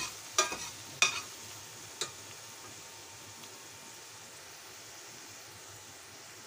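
Minced garlic and shallot sizzling in oil in a stainless steel frying pan, with a spatula scraping and knocking against the pan about four times in the first two seconds, then a steady soft sizzle.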